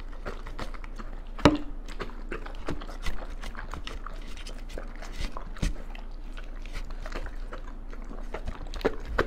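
Doberman eating mushy raw food off a plate: wet licking, smacking and chewing, with a few sharper knocks, the loudest about a second and a half in.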